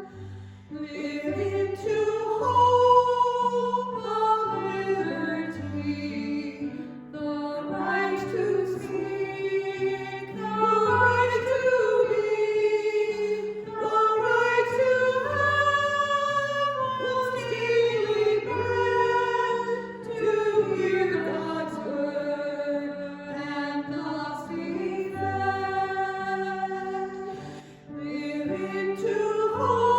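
Voices singing a slow hymn, with held low accompaniment notes that change every second or two beneath the melody.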